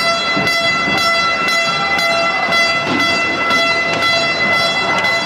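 A steady horn-like tone held without a break over the noise of an arena crowd, with faint rhythmic beats about twice a second.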